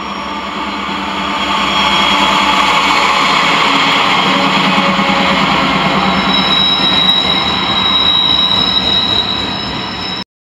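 Norfolk Southern freight train passing: diesel locomotives go by, then double-stack intermodal cars roll past with a steady rumble of steel wheels on rail that swells over the first couple of seconds. A thin high wheel squeal joins about six seconds in, and the sound cuts off suddenly just before the end.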